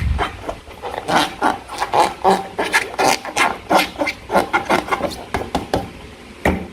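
Slime being squished and worked by hand, giving a run of quick, irregular wet squelches and sticky clicks, several a second.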